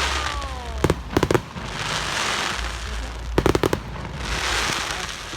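Aerial fireworks going off: a falling whistle at the start, then a quick cluster of sharp bangs about a second in and another cluster about three and a half seconds in, with a crackling hiss between the bursts.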